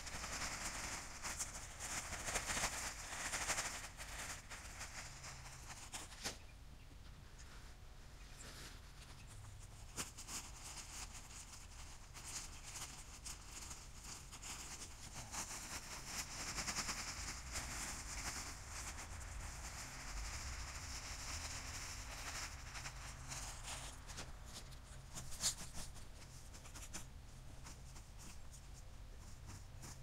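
Shredded wood mulch pouring out of a bag onto a pile, a rustling hiss that comes in two spells, with scattered clicks and knocks.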